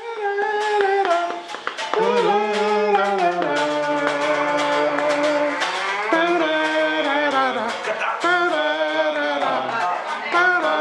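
Music: a melody with sliding, wavering pitch over plucked strings.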